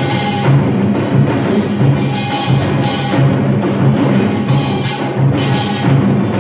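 Samulnori ensemble playing a fast, driving rhythm: janggu and buk drums beating densely under bright metallic crashes of the kkwaenggwari and jing gongs, which recur about once a second.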